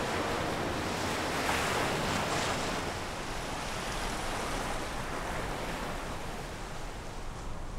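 Surf washing onto a sandy beach, with a wave swelling up about a second and a half in, then a softer steady wash that slowly fades.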